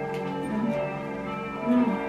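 Catholic church bells ringing the evening bell, many overlapping tones sounding and ringing on steadily.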